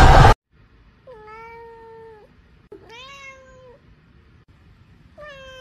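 A domestic cat meowing three times. Each meow is a clear, steady-pitched call of about a second, and the second one slides up before it levels off. A loud burst of noise cuts off abruptly just before the first meow.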